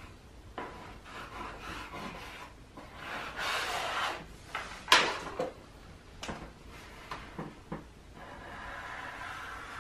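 Pencil scratching and rubbing on construction paper as it traces around a paper cutout, with one sharp tap on the tabletop about five seconds in and a few lighter knocks of paper and pencil being handled. Steady pencil scratching again near the end.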